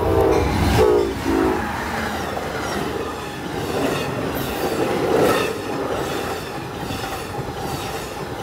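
Passenger train horn sounding a few blasts in the first second and a half as a GE Genesis diesel locomotive passes close by, then the steady rumble and clickety-clack of the double-deck Superliner cars' wheels running past on the rails.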